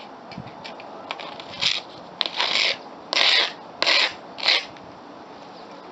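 Short scraping and rubbing strokes from a gloved hand working a fresh cement patch, about five in quick succession in the second half.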